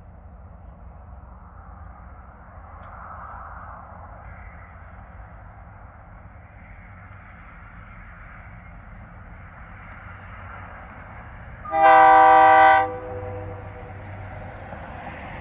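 Air horn of an approaching diesel locomotive sounding one blast of about a second, the loudest sound, over a steady low rumble.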